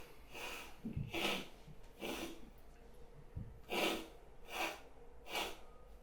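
A run of short sneezes and snorts, about six in a row at uneven intervals of well under a second to about a second and a half, some louder than others.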